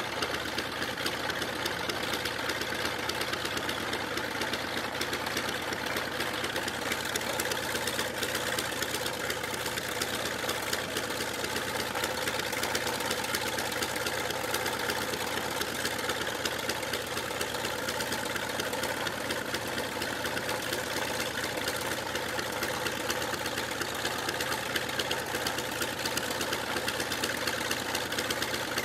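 Radial engine of a WWII Grumman Wildcat fighter idling steadily, its propeller turning.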